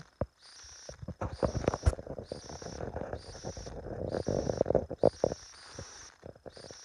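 High insect-like chirping repeats in an even rhythm, about three chirps every two seconds. A stretch of rustling, scuffling and sharp knocks lies over it, loudest about two seconds in and again about five seconds in.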